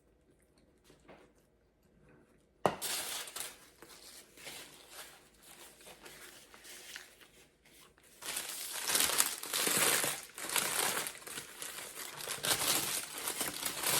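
Crinkling and tearing of a burrito's wrapper as it is handled and unwrapped, starting suddenly about three seconds in and getting louder from about eight seconds in.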